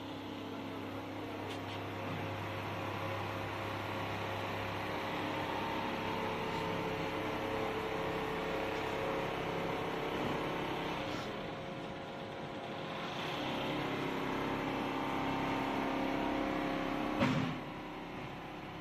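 Richpeace single-needle quilting machine running, its stitching head and drive motors giving a steady mechanical hum whose tones shift a few times. A sharp clunk comes near the end, after which it runs a little quieter.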